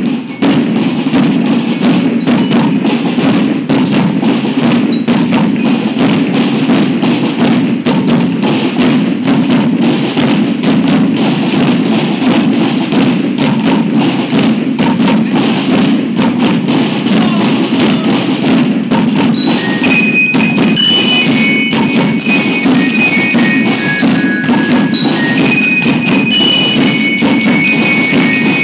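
School marching band playing a steady, dense drum beat. About two-thirds of the way through, bell lyres come in over the drums with a high ringing melody.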